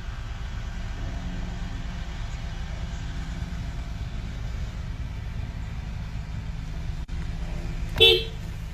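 A steady low rumble throughout, with a short, loud pitched cry about eight seconds in.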